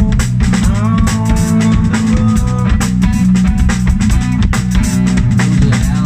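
Live rock band playing: electric guitar, electric bass and a Sonor drum kit, the drums hitting in a steady beat under the guitars.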